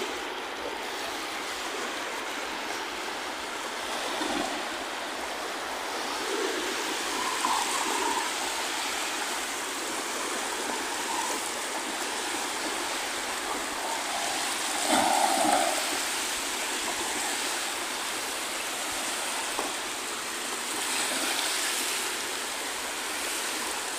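Steady wash of small sea waves on the shore, swelling a little twice.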